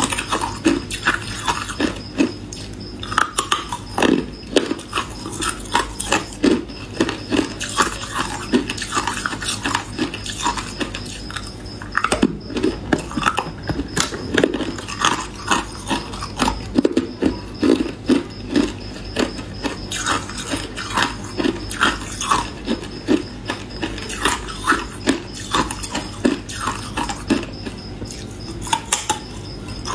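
A person biting and chewing hard ice close to the microphone: a run of sharp crunches and crackles, about one to two a second, with short pauses between bites.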